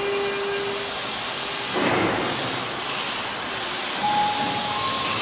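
Yokohama Minatomirai Railway Y500-series electric train at an underground platform, with a steady hum and a short burst of compressed-air hiss about two seconds in. Brief high electronic tones sound near the end.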